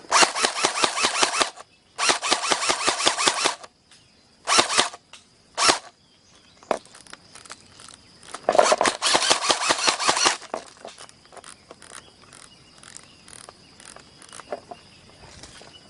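Airsoft guns firing in full-auto bursts of rapid clicks. There are two long bursts at the start, two short ones a few seconds in, and another long burst past the middle. Scattered single clicks and taps follow.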